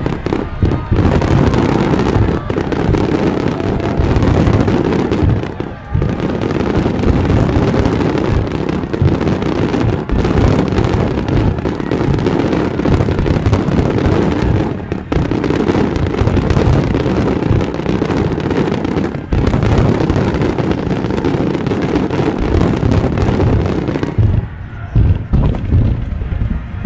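Fireworks barrage: a dense, continuous run of shell bursts and bangs overlapping into one sustained rumble. A couple of whistling shells rise near the start, and the bursts thin out and turn more separate near the end.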